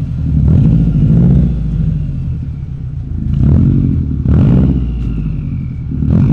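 A 2013 Subaru WRX hatchback's turbocharged 2.5-litre flat-four runs through an Invidia N1 race single-exit exhaust. It is blipped up in short revs about three times between idle.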